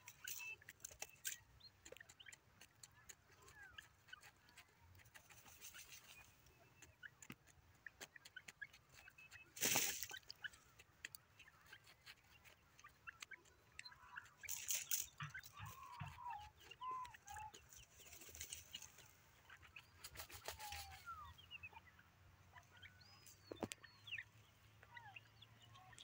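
Grey francolin giving soft, faint clucking calls, with scattered faint ticks and scratches and a few brief rustling bursts, the loudest about ten seconds in.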